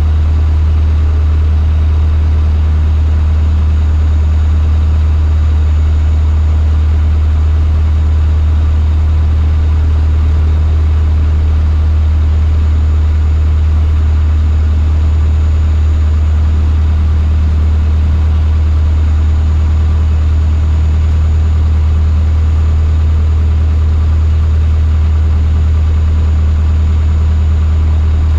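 Cessna 152's four-cylinder Lycoming O-235 engine and propeller, heard inside the cockpit: a loud, steady low drone that holds an even pitch throughout.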